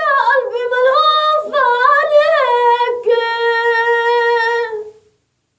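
A single high voice singing unaccompanied: a phrase of quick turns in pitch, then a long held note that ends about a second before the close.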